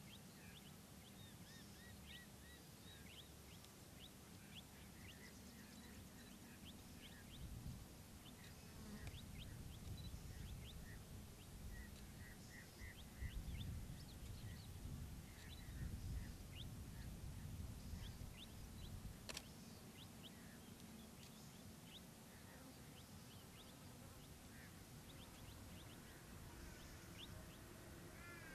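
Birds chirping in many short, high, sweeping calls over a faint low rumble that swells in the middle and then fades.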